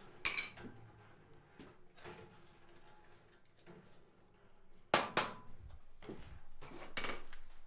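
Metal tools being handled in a blacksmith's shop: blacksmith's tongs and a hot iron bar clanking as the bar is drawn from the coal forge. There is a light clink at the start, two sharp clanks about five seconds in, and a softer knock near the end.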